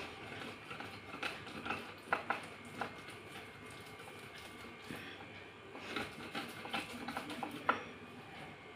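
Slate pencil pieces crunching and crackling as a metal rolling pin is rolled back and forth over them on a stone slab, crushing them toward powder. The crackles come irregularly, in louder clusters a second or two in and again in the second half.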